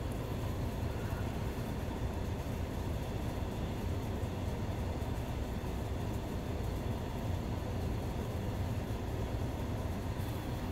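Desktop PC's cooling fans and liquid-cooler pump running steadily: a continuous whoosh of air with a low hum.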